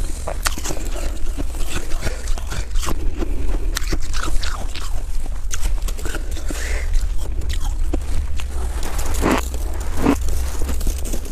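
Close-miked crunching of packed snow: gloved hands scoop and press snow into a ball with dense crackling, then two loud bites into the snowball near the end, with chewing crunches. A steady low rumble runs underneath.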